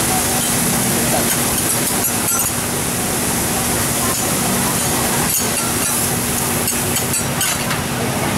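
Steady hiss of bean sprouts and beef sizzling and steaming on a hot teppanyaki griddle, with a few light clinks of metal spatulas in the second half, over a steady low hum.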